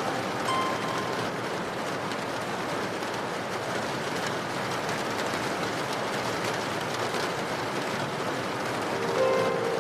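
Steady, even rain. One soft harp note sounds about half a second in, and harp notes come back near the end.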